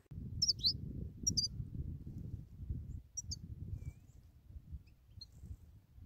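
European goldfinches giving short, high twittering chirps in a few quick groups during the first three seconds, then fainter single chirps, over a steady low rumble.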